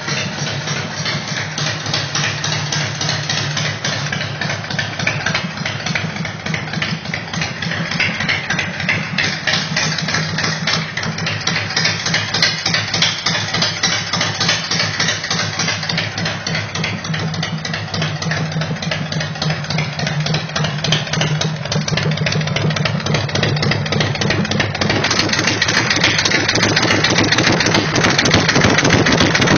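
Big Dog Ridgeback chopper's V-twin engine idling steadily, a dense even beat throughout, growing louder near the end.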